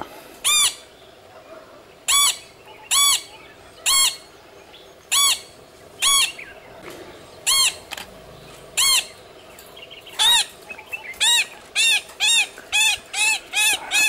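A scimitar babbler calling: short, loud, arched notes given one at a time about a second apart, then a faster run of repeated notes near the end.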